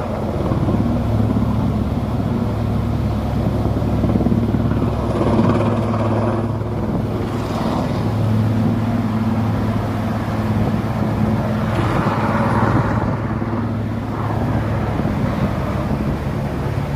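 Helicopter in flight: a steady drone of rotor and engine with a constant low hum.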